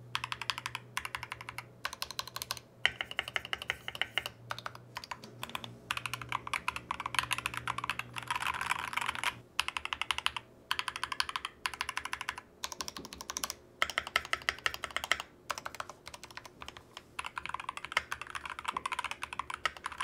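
Typing on a modded GK61 60% mechanical keyboard with lubed Gateron optical yellow switches, first with Akko ASA-profile keycaps and then with LTC KDA-profile PBT keycaps. Rapid, dense keystroke clacking in short runs separated by brief silences.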